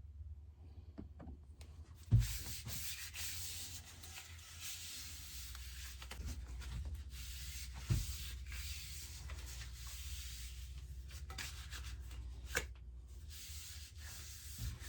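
Scratchy rubbing against the wooden axe handle, starting with a knock about two seconds in, with a second knock near the middle and a lighter one later.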